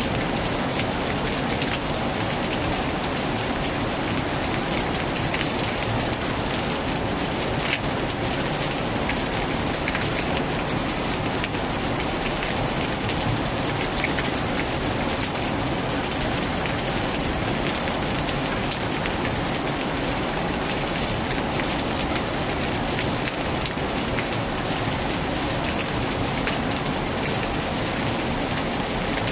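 Heavy rain falling steadily, a dense unbroken patter.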